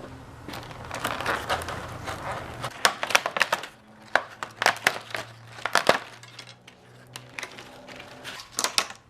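Clicking, clacking and crinkling from a car's plastic wiper blade and its mounting clips being handled, in a quick run of sharp clicks with the busiest stretch in the middle.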